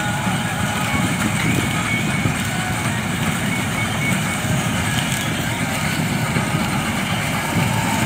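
Combine harvester with a maize cutter header running steadily as it harvests dry standing maize: engine and threshing machinery.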